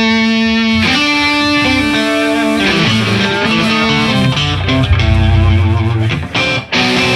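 Electric guitar playing rock music, held notes changing about once a second, with low bass underneath.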